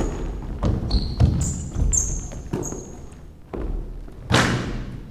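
A basketball bouncing on a hardwood gym floor, irregular thuds echoing in the hall, with short high squeaks of basketball shoes on the court between them. A louder thud comes about four seconds in.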